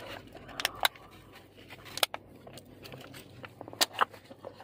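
Scattered clicks and short rustles from a foil pie tray and paper wrapping being handled and a fork going into the pie, with the sharpest clicks about two seconds in and near the end.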